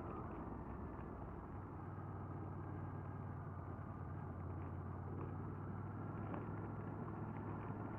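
Honda VFR800Fi's V4 engine running at a steady note on the road, with wind and road noise; the steady engine tone settles in about two seconds in.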